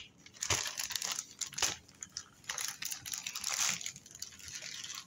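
Thin plastic food bag crinkling and rustling in several bursts as hands press and fold it, with a longer stretch of crinkling near the middle.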